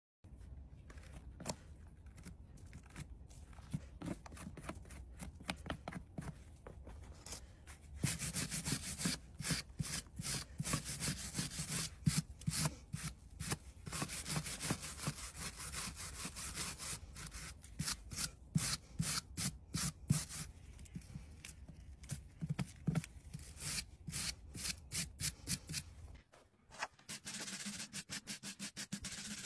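Hoof knife paring and scraping the sole of a horse's hoof in many short, quick strokes, sparse at first, then louder and denser from about eight seconds in.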